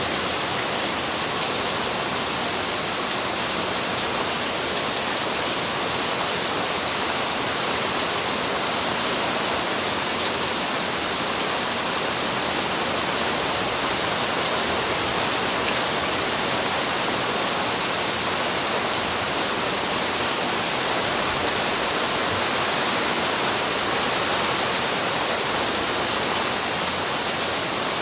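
Steady rain: an even, unbroken hiss with no single drops standing out.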